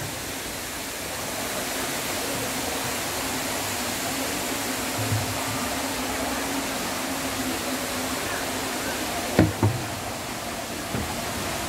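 Steady rushing of falling water from the dome's tall indoor waterfall. Two short knocks sound about nine and a half seconds in.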